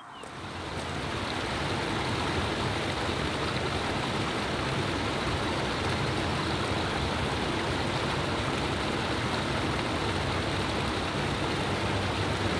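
Steady rush of river water running over rocks and small rapids, fading in over the first second or two and then holding even.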